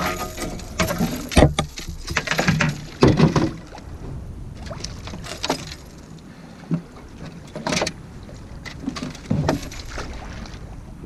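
A hooked blue catfish splashing in the water beside a boat, with knocks on the boat's hull. The splashing is heaviest in the first few seconds, then thins to scattered splashes and knocks.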